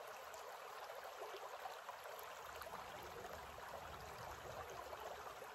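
Shallow creek running over rocks: a faint, steady rush of water.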